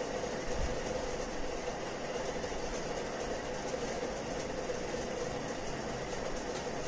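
Steady indoor background hum and hiss with a constant mid-pitched tone, like a running fan or air-conditioner, with no distinct events.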